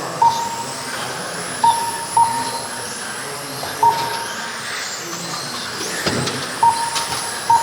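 Radio-controlled race cars running on the track, their motors making a high whine that slides up and down in pitch. Six short, loud electronic beeps at one pitch cut through it at uneven intervals, typical of a lap-counting system registering cars as they cross the timing line.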